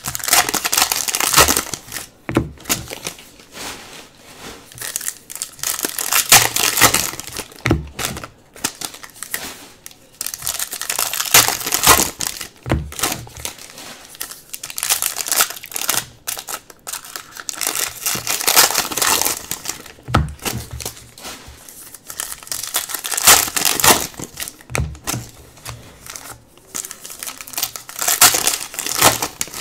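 Foil trading card packs crinkling loudly as they are handled and torn open by hand, in repeated bursts every few seconds.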